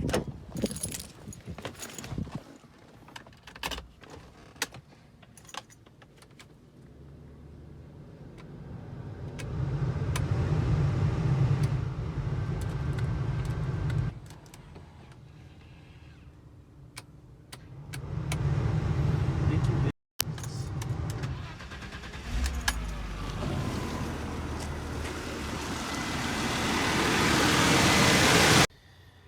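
A few clicks and rattles, then the E30 BMW's newly fitted heater blower motor running with a rush of air. It runs for several seconds, stops, comes on again, and near the end grows steadily louder before cutting off suddenly.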